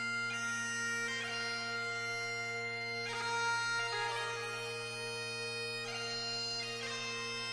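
Great Highland bagpipes playing a traditional Highland medley: the drones hold one steady low note under the chanter's melody of long held notes.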